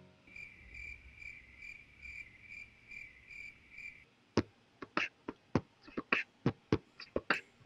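A cricket chirping in short, even pulses, about two or three a second, which stop about four seconds in. A run of sharp, irregular clicks follows.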